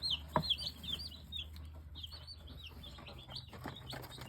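Cornish Cross broiler chicks peeping: many quick, high chirps, each one dipping and hooking in pitch, with a few light taps among them.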